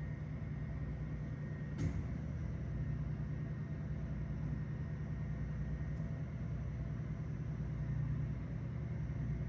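Steady low rumble of a running vehicle, with a single sharp click about two seconds in.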